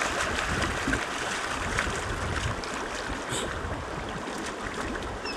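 Dogs wading and splashing in a pond: a steady rush of water, with wind rumbling on the microphone.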